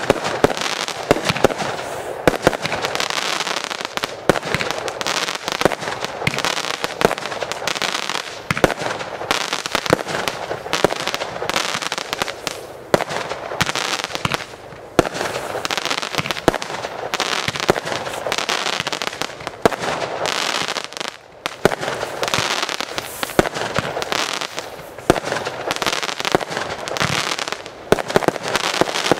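Display fireworks firing in a continuous barrage: many sharp bangs from shells and comets launching and bursting over a steady crackling hiss, easing briefly twice.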